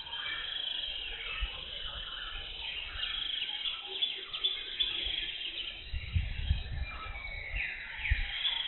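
Jungle ambience of many birds chirping and calling, with a few low thuds about six and eight seconds in.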